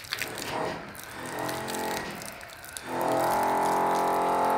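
A motor hum at a steady pitch, faint at first and then much louder and steady from about three seconds in.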